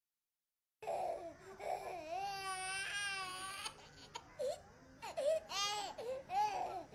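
A toddler crying, starting about a second in after silence: long wavering wails, then shorter broken sobs.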